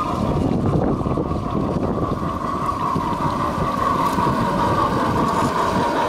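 Battery-powered G-gauge model train running along the track toward the listener, its wheels rolling over the rail joints with a steady whine that grows stronger about halfway through as it draws near.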